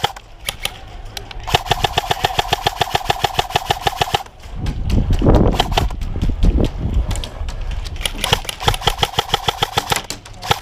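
Airsoft electric gun firing on full auto in long bursts, about thirteen shots a second, with the gearbox motor whining under each burst. Between the bursts there is a loud, rough, low rushing noise.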